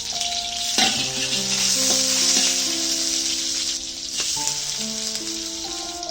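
Food sizzling as it fries in a pan while being stirred, with a sharp clack of a utensil about a second in. Background music with long held notes plays underneath.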